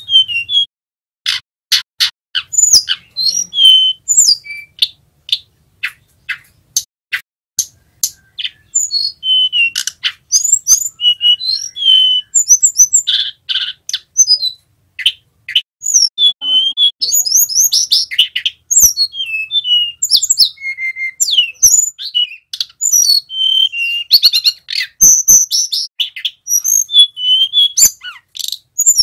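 Male hill blue flycatcher singing as it practises the rolling 'ngerol' song: sparse sharp high notes at first, then from about nine seconds a dense run of varied whistles and quick trills.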